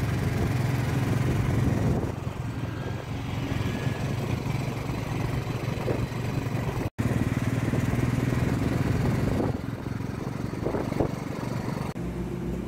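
Motorcycle engine running steadily while riding, with wind and road noise. The sound cuts out abruptly for an instant about seven seconds in, then carries on.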